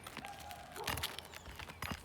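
Scattered knocks and light scraping from a roof snake working at roof shingles to get at their nails, with two clearer knocks about a second in and near the end.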